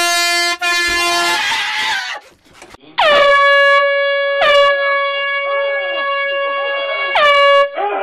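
Air horn blasts: two short blasts in the first second and a half. After a pause of about a second and a half, a higher-pitched horn is held for over four seconds, with one brief break a little after it starts.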